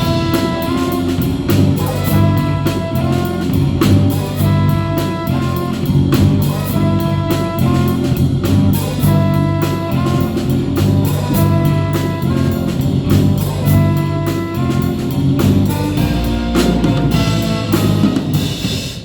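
Concert band playing a New Orleans jazz tune: brass and saxophones over a drum kit keeping a steady beat. The sound dies away at the very end.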